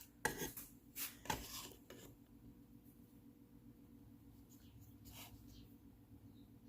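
Pencil marking on a wooden board: a few short, faint scratchy strokes in the first two seconds and one more about five seconds in.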